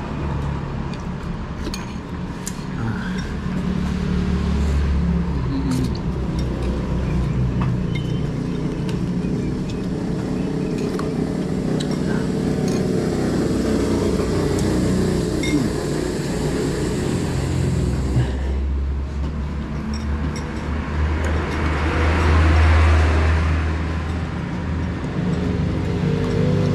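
Road traffic going by, a steady rumble with one vehicle passing louder about three quarters of the way through, while spoons clink now and then against ceramic soup bowls.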